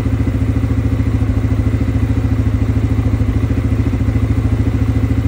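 CFMOTO Cforce 600 ATV's single-cylinder engine idling steadily at about 1,600 rpm, its exhaust beating in a fast, even pulse. The engine is still cold, so the idle is raised.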